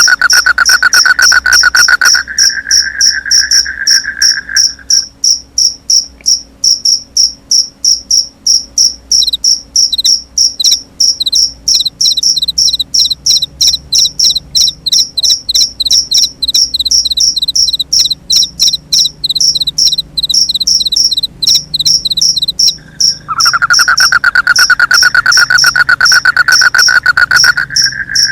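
Crickets chirping in a fast, steady, high-pitched pulse. A second, lower, rapidly pulsing trill sounds over them, drops out after about five seconds and comes back for the last few seconds.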